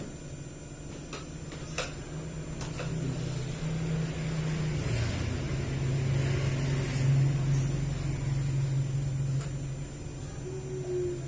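A low motor hum that swells and then fades, its pitch dropping a step about four seconds in, with a few light clicks near the start.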